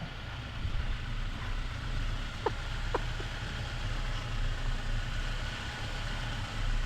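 Jeep Wrangler 4xe's 2.0-litre turbo four running low and steady as the Jeep crawls up a rock ledge, with two brief sharp sounds about half a second apart roughly a third of the way in.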